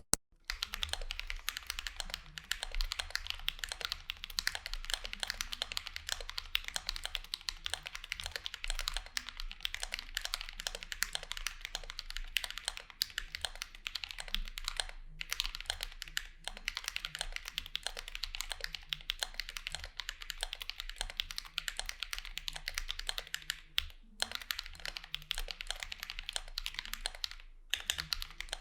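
Fast, continuous typing on a mechanical keyboard with lubed Holy Panda tactile switches in a Vulcan x KBDfans Maja case, with a few brief pauses.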